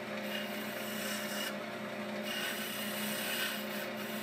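Wood lathe running with a steady motor hum while a hand-held turning tool cuts a spinning redheart spindle, giving a continuous scraping hiss as the wood cuts smoothly.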